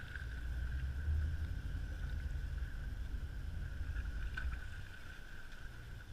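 Fishing boat's engine running with a low rumble that swells about a second in and eases off near the end, with a steady high whine alongside.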